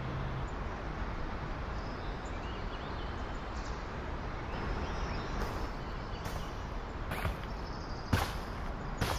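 Steady outdoor background noise with faint bird chirps, then a few short sharp clicks or crunches in the last two seconds, the loudest about eight seconds in.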